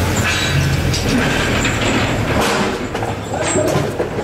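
Forklift truck driving past, its engine running as a steady low hum that drops away about two and a half seconds in, followed by a few sharp knocks.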